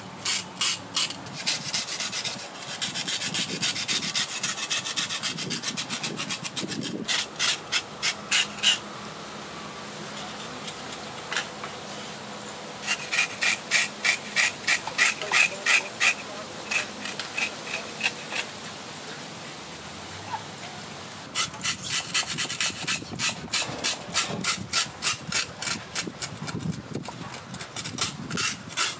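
Cleaver blade scraping the rough skin of a small shark against a wooden chopping board, in quick repeated strokes of about two to three a second. The strokes come in runs broken by pauses of a few seconds.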